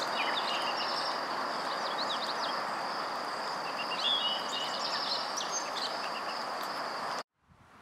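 Birds chirping and calling over a steady rushing hiss and a thin, steady high-pitched buzz. It all cuts off suddenly near the end.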